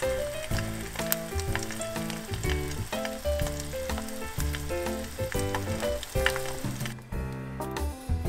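An egg frying in hot oil in a nonstick pan, sizzling steadily. The sizzle drops away near the end, with background music throughout.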